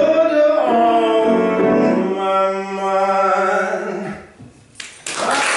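A man singing with his own grand piano accompaniment, ending on a held final note and chord that fades away. Applause breaks out suddenly about five seconds in.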